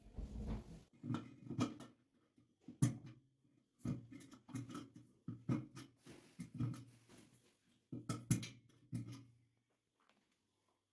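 Repeated knocks, clicks and rattles of hard parts being handled, some clusters sharper than others, with a low hum in places; the sounds stop about a second before the end.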